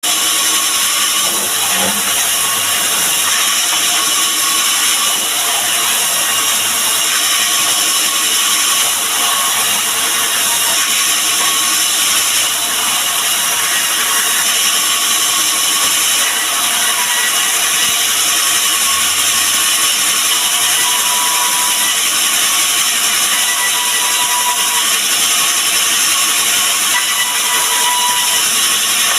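Woodworking power tool running steadily as it machines a mahogany board, a loud, even hiss with a mechanical rattle that does not let up.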